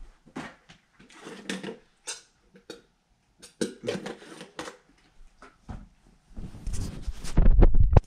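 Irregular rustling and scraping handling noise from a hand-held camera. A louder, rumbling stretch of handling noise comes near the end as the camera is moved back.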